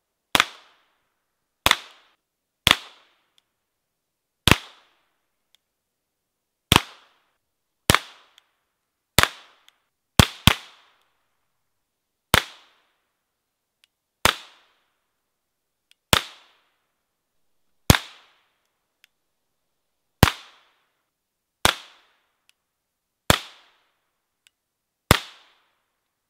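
CIP22 long-barrel .22 LR pistol (Calibre Innovations, on a Glock Gen 3 frame with a 12-inch barrel) firing CCI Mini-Mag rounds. It is a slow string of about seventeen single sharp cracks, one every one to two seconds, with a quick double shot about ten seconds in.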